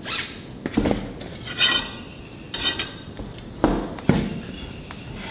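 Truck wheel with an aluminum rim being worked onto the steer-axle hub: about half a dozen metallic clinks and knocks as the rim bumps the hub and studs, two of them ringing briefly.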